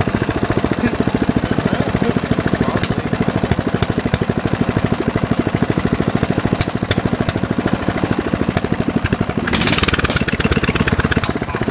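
Mud mower's small lawn mower engine running close to the microphone, a fast, even pulsing of firing strokes, with a brief louder hiss near the end.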